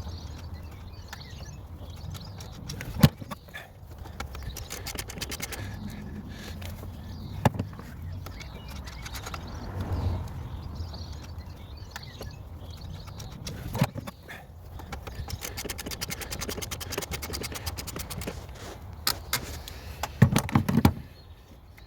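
Hand tools working on metal fixings: rapid runs of ratchet clicking, with sharp metallic knocks and scraping as 10 mm bolts are undone and a part is worked loose. The loudest knocks come about 3 s, 7.5 s and 14 s in, and a cluster comes near the end.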